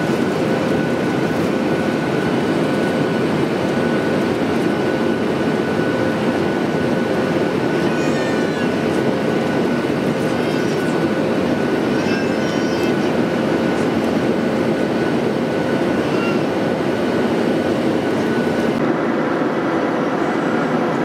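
Steady roar inside the cabin of a Boeing 737-800 in flight: its CFM56 jet engines and the airflow over the fuselage, with a faint steady hum running through it. A few faint, brief high-pitched sounds come through near the middle.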